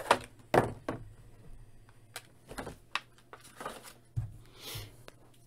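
Clear plastic blister packaging being handled while a small toy crowbar accessory is worked free and set down on a table: a string of light plastic clicks and knocks, with a short crinkly rustle near the end.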